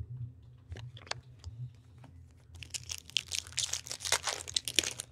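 Trading-card pack wrapper crinkling and cards being handled while a hockey card pack is opened. A few light clicks come first, then about two seconds of dense crinkling near the end.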